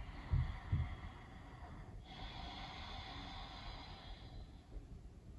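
A woman breathing in a held yoga bridge pose: one long, soft breath of about two and a half seconds, starting about two seconds in. A couple of faint low bumps come near the start.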